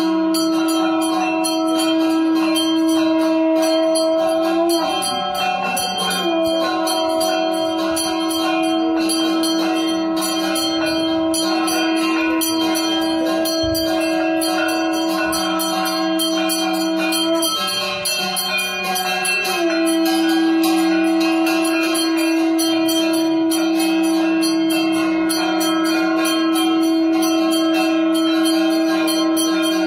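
Temple hand bell (ghanta) rung continuously, over a loud steady held tone that breaks off briefly twice, about five and eighteen seconds in.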